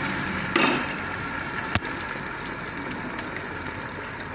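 Sliced onions and blended tomato frying in hot oil in a metal pot: a steady sizzle while a metal spoon stirs, with a single sharp click about two seconds in.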